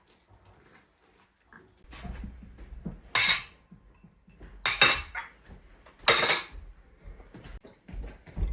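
Dishes and cutlery clattering, with three loud clatters about a second and a half apart in the middle and smaller knocks between them.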